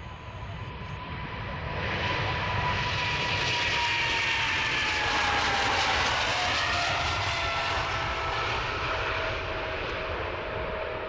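Boeing 777-300ER's two GE90 turbofans at takeoff power on the takeoff roll. A broad jet rush swells about two seconds in and is loudest midway, with a whine that falls in pitch as the aircraft passes, then eases slightly near the end.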